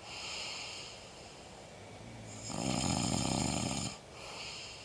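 A sleeping man snoring: a soft snore at the start, a loud one lasting over a second about two and a half seconds in, and a softer one near the end.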